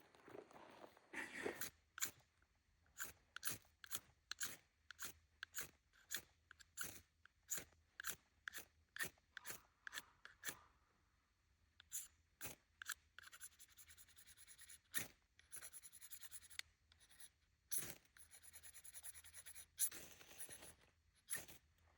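Flint and steel being struck over and over to throw sparks for a campfire. The short rasping strokes come about two a second, then give way to a few longer, hissier scrapes in the second half. Faint.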